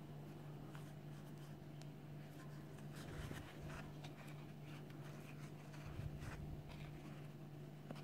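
Faint rustling and light clicks of a steel crochet hook and yarn as single crochet stitches are worked through the holes of a felt slipper sole, with a soft bump about six seconds in. A steady low hum runs underneath.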